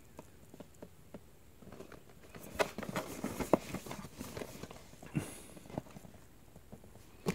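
A cardboard box being handled and turned over in the hands: a scattering of light taps and rubs of fingers and palms on the card, mostly in the middle few seconds.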